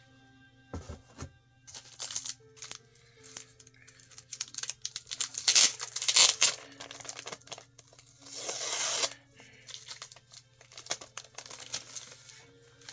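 Comic books and their paper and plastic packing being handled: rustling and crinkling with scattered clicks, and two longer tearing bursts, one around the middle and a louder-sounding one about two-thirds of the way in.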